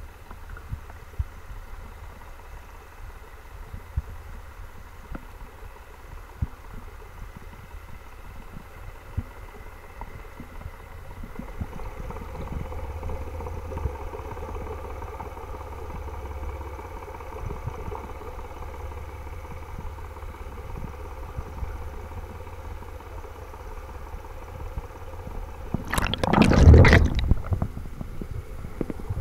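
Underwater ambience picked up through a camera housing: a low rumble with scattered small clicks, joined from about a third of the way in by a faint steady engine hum. Near the end, a loud rushing burst lasts about a second.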